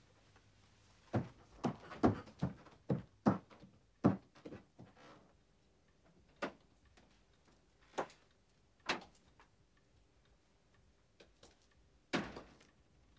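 Footsteps, about two a second for three or four seconds, growing louder, then a few single knocks and a louder thump near the end.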